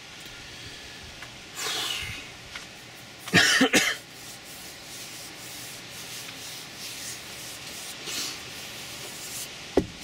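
A man's breathy exhale, then a single cough about three and a half seconds in, and the rustle of his hand rubbing over his face and hair, with a sharp click near the end.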